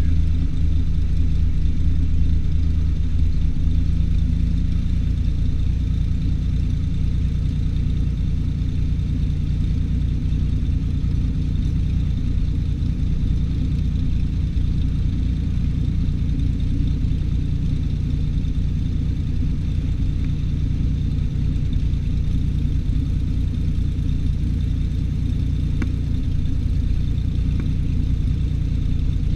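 Cessna 210's six-cylinder piston engine and propeller running at low taxi power, a steady low drone whose note shifts slightly about three seconds in.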